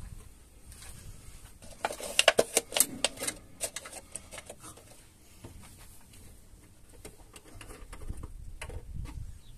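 Crackling clicks of a thin plastic bottle, used as a funnel in the tractor's filler hole, as it is gripped and worked into place by hand: a dense run of clicks about two seconds in, then scattered clicks.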